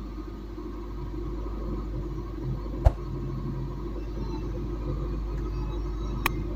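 Toyota Prius switched on and running, a steady low hum heard inside the cabin. A sharp click comes about three seconds in and a fainter one near the end.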